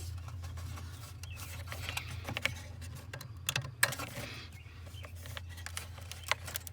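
Irregular clicks, taps and scraping of hands working a plug-in turn-signal flasher unit in its socket under the dashboard, over a steady low hum.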